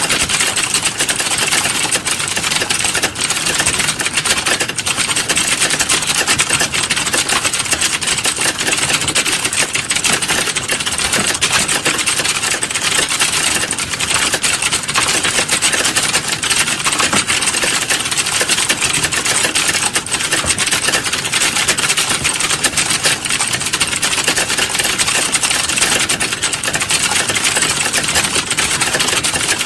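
Computer keyboard typing sound effect: fast, continuous key clicks running together into a dense, even clatter.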